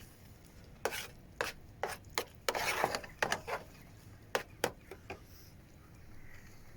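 A utensil knocking and scraping against cookware in a cramped van kitchen: about ten irregular taps and short scrapes, then they stop about five seconds in.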